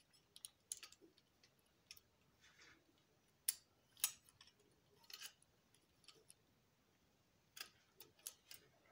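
Faint, irregular clicks and taps of a model train car's frame and trucks being handled, about nine light knocks spread over several seconds.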